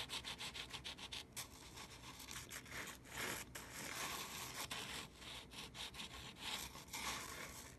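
Wooden sanding block rubbed back and forth over the braces of a guitar top: a faint, repeated scraping. This is the stroke used to relieve the struts a little toward the bridge.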